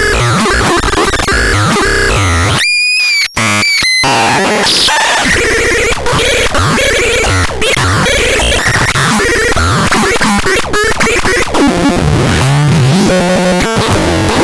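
Loud harsh noise music: a dense, distorted electronic wall of noise with shifting squeals, broken briefly about three seconds in by a clean steady high tone before the noise resumes.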